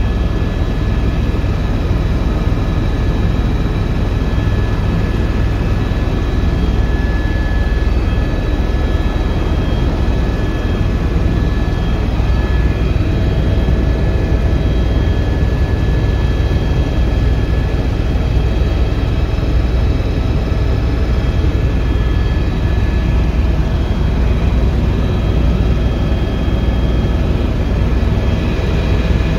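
Helicopter cabin noise in steady flight, heard from inside the cabin: a loud, even low rumble of rotor and engine with a thin steady high whine above it.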